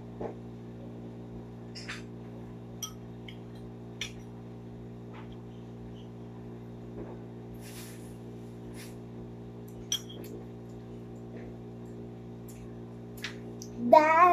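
A metal spoon clinks now and then against a ceramic bowl during eating, a few short sharp clicks over a steady low hum. A child's voice starts near the end.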